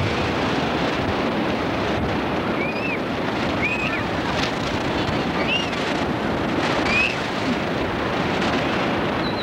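Ocean surf washing in the shallows with wind buffeting the microphone: a steady, even rush. A few short high squeaks sound over it, spaced about a second or two apart.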